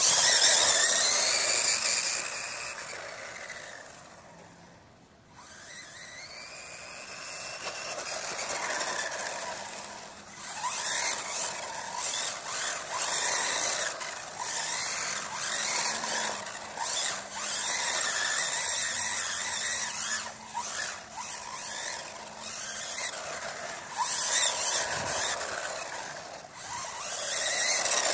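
Electric XK Force four-wheel-drive RC stadium truck running flat out on a 2S battery: a high motor and gear whine that rises and falls in pitch as it accelerates and passes. It fades away about four seconds in, then comes back and keeps surging.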